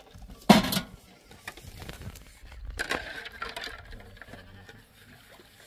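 Goats bleating: one loud bleat about half a second in and a softer one around three seconds in. Light clinks of metal dishes being washed come between them.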